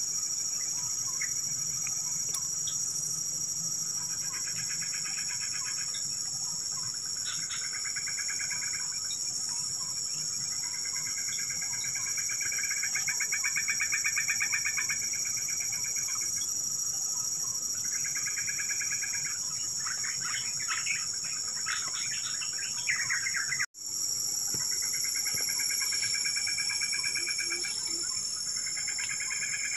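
Steady high-pitched insect chorus, with repeated trilling calls of one to four seconds each coming and going over it. The sound drops out for an instant about two-thirds of the way through.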